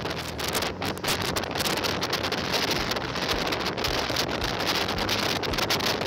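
Wind buffeting the microphone over the rush and splash of water along the hull of a moving boat, with a steady low hum underneath.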